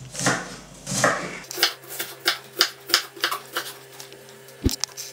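Kitchen knife chopping onion on a wooden cutting board: a string of sharp knocks of the blade on the board. They come slower and softer at first, then about three a second from a little over a second in, with one louder knock near the end.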